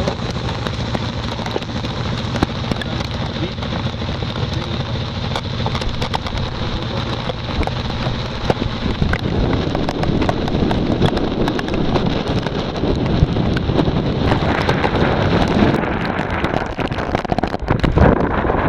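A boat engine's steady low hum, with wind buffeting the microphone and a hiss of water. The sound grows fuller about halfway through.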